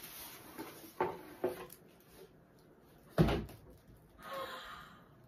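Packaging rustling and handling knocks as a plush toy is pulled out of its plastic mailer bag, with a few sharp crinkles in the first second and a half and one loud, deep thump about three seconds in.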